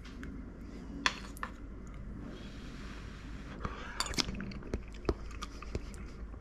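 A metal spoon clinking lightly against a soup bowl, a few scattered clicks: a pair about a second in and a cluster around four to five seconds in.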